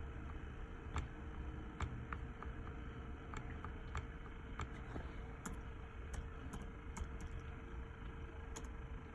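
Scattered, irregular clicks of computer keys over a low steady hum and a faint steady tone.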